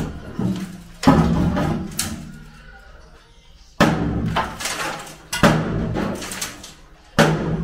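Timber formwork being struck loose from the underside of a concrete slab with a long pole: a series of heavy knocks, roughly one to two seconds apart, each followed by boards clattering and rattling.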